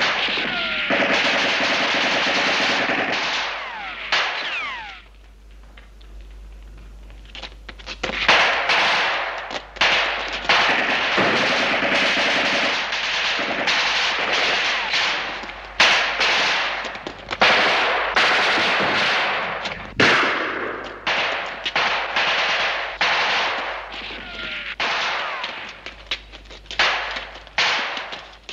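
Battle gunfire: machine-gun bursts and gunshots. Dense firing for the first few seconds, a brief lull, then a long run of separate shots and short bursts, with a few falling whines among them.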